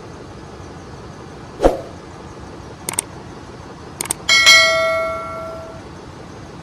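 Steel tools and engine parts knocking and clinking: a dull knock, a few light clicks, then a sharp metal clang that rings on like a bell for about a second and a half. Under it runs the steady hum of engine-room machinery.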